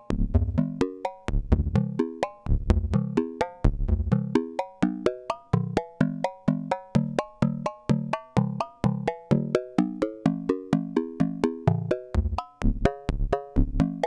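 Buchla modular synthesizer playing a fast, even stream of short plucked-sounding notes, several a second, each with a click at the start and a quick decay. The pitches jump back and forth between low and higher notes as a pulse train keeps retriggering the envelope.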